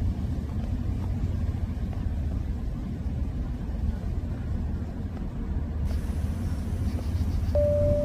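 Steady low outdoor rumble with no distinct source. Near the end a single sustained chime-like music note begins.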